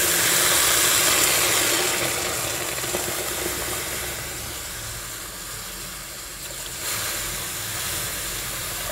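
Water hissing and sizzling as it hits a hot pan of freshly dry-roasted moong dal, flashing into steam. Loudest at first, the hiss slowly dies down as the pan cools to a bubbling simmer.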